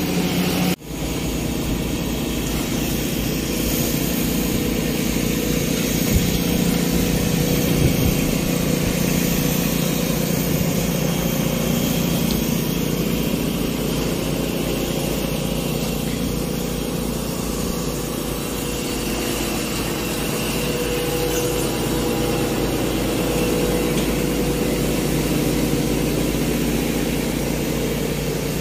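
Hydraulic excavator's diesel engine running steadily at idle, with a very short break about a second in.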